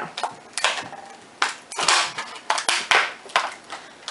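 Stiff clear plastic clamshell packaging crackling and snapping as it is flexed and pulled apart by hand, in an irregular string of sharp crackles.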